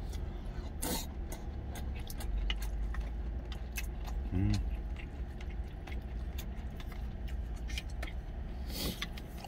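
Eating sounds: a spoon clicking and scraping against a stainless-steel bowl and chewing, as many small scattered clinks, over a steady low rumble. A short hummed "mm" comes about four and a half seconds in.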